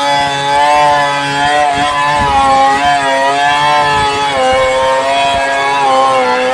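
Stihl 070 two-stroke chainsaw running at high revs while ripping a log lengthwise freehand, its engine pitch dipping and recovering repeatedly as the chain loads up in the cut.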